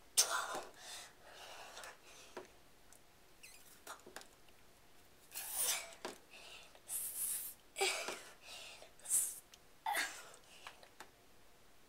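Hard, effortful breathing from someone doing chin-ups: short, hissing breaths in and out every second or two, with the strain of each pull.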